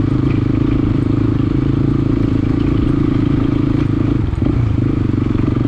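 Motorcycle engine running steadily, with a brief dip in its note about four seconds in.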